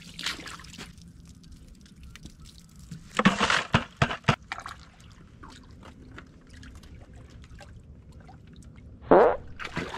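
Shovel digging wet, gravelly clay out of a water-filled muddy ditch: water sloshing and trickling, with a loud wet scoop and a few sharp knocks about three to four seconds in, and another loud splash about nine seconds in.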